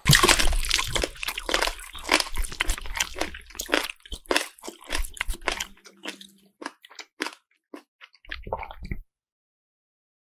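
Crisp crunching and chewing of an ASMR eating sound, dense and rapid at first, thinning to scattered single crunches and stopping about nine seconds in.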